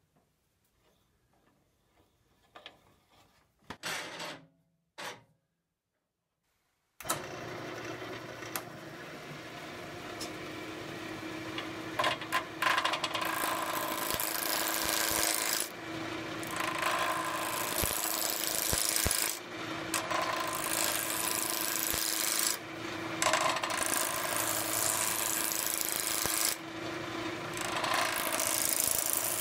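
Craftex wood lathe running with a steady hum while a roughing gouge cuts a spinning wooden post blank, a loud rough shaving noise that drops away briefly every few seconds between passes. Before it starts suddenly about seven seconds in, there are only a few faint knocks.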